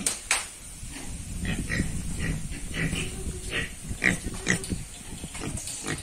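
Pigs grunting, a run of short grunts about twice a second, with a couple of sharp clicks at the start.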